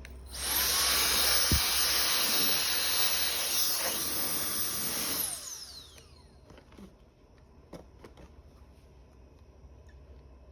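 An electric turbo fan spinning up and blowing hard for about five seconds, then switched off and winding down with a falling whine.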